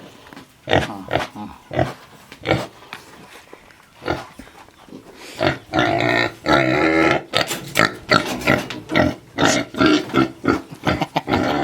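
Philippine native pigs grunting in short separate calls, growing louder and almost continuous about halfway through. They are excited by the smell of feed mixed with molasses.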